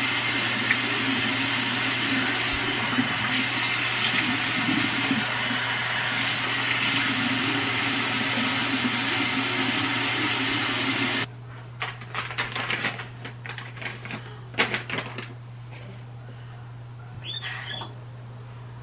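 Bathroom faucet running steadily into the sink during face washing, shut off abruptly about eleven seconds in. After that come soft rubbing and handling sounds as a towel is used on the face.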